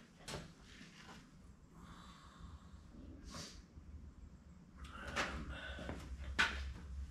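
Someone handling small hardware at a workbench: a few light knocks and a brief rustle, then a cluster of sharp clicks and clatters near the end as the bolts for the transmission's front pump are gathered.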